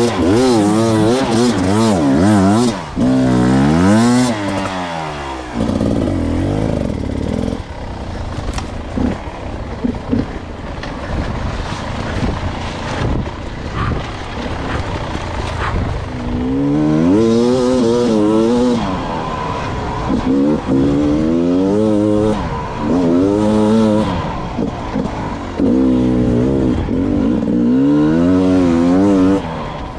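Beta 300 two-stroke enduro motorcycle engine revving up and down in repeated short bursts of throttle on a trail. A lower, rougher stretch comes in the middle, and the revving picks up again in quick blips after that.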